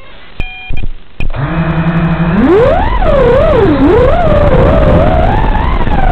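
A few short electronic beeps, then the racing quadcopter's four Emax RS2205 2600kv brushless motors spin up to a steady idle whine. About a second later the pitch rises sharply as it takes off, then rises and falls with the throttle in flight.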